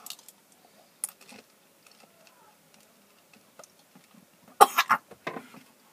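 A boy coughing in a short burst of several coughs about four and a half seconds in, set off by a mouthful of foul-flavoured jelly beans. Before that there are only faint mouth noises and one short noise about a second in.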